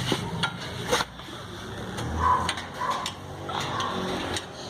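Scattered metallic clicks and knocks as a new suspension ball joint and its fasteners are fitted by hand with tools.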